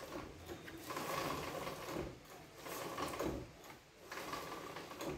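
Rear wheel of a Yamaha FZ 250 motorcycle turning by hand after a brake pad change, the wheel and drive chain giving a faint mechanical whir in three spells of about a second each.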